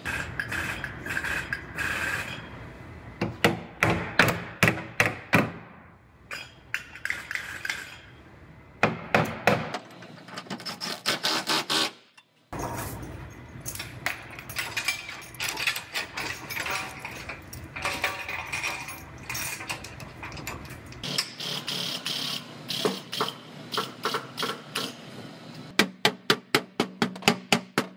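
Repeated hammer blows on the crumpled steel of a car's rear body panel, trunk floor and pulling clamp, knocking out collision damage while a frame machine holds it under pull to relieve the tension in the metal. The blows come in irregular clusters and end in a quick run of about five a second.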